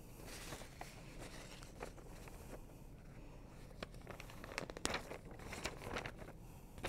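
Faint rustling and crinkling of a sheet of paper being handled, with a few sharp clicks about four to five seconds in.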